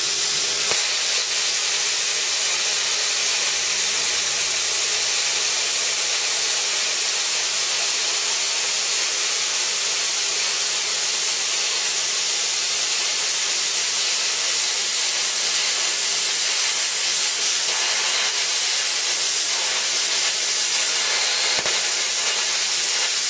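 Hand-held plasma cutter torch cutting through 3 mm steel plate at 18 amps: a loud, steady hiss of compressed air and arc.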